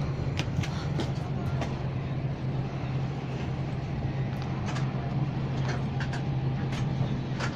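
Airbus A319 airliner cabin noise: a steady low hum over an even rush of air, with scattered light clicks and knocks.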